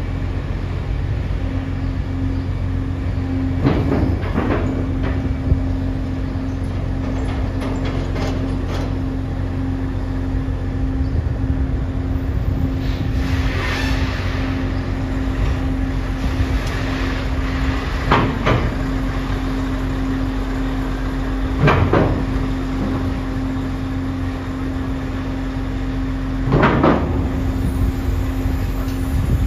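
Steady low drone of the ferry's machinery, broken about every four to five seconds by a heavy metallic clank or rattle, six in all, as trucks roll over the ferry's loading ramp.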